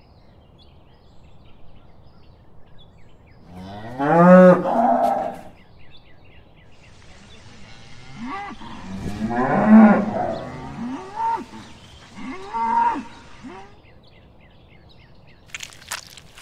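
Holstein dairy cows mooing: one long moo about four seconds in, then a run of several moos from about eight to thirteen seconds in, the loudest near ten seconds.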